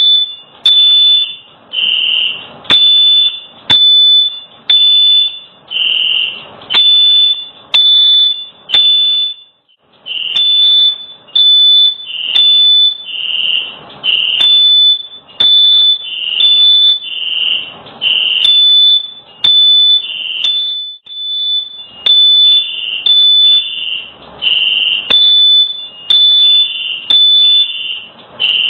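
Smoke alarm going off, sounding loud high-pitched beeps about once a second at two slightly different pitches, with a brief gap about ten seconds in; it is set off by smoke from a kitchen fire.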